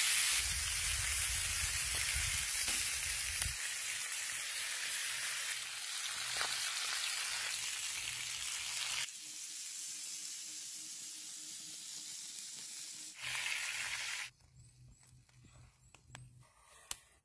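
Steak searing in a cast-iron grill pan, a steady sizzle in hot fat. It turns quieter about nine seconds in and stops about fourteen seconds in, leaving only a few faint taps.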